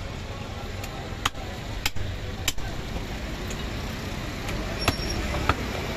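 Butcher's cleaver chopping mutton on a wooden block: about six sharp chops spaced unevenly, with a pause of a couple of seconds in the middle, over a steady background hum.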